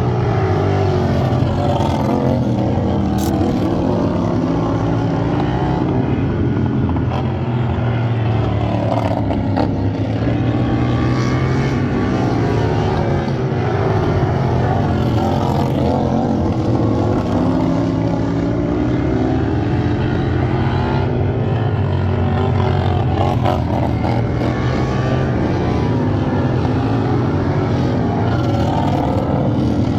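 Racing lawn tractor engines running hard, their pitch rising and falling as they rev up and back off through the laps.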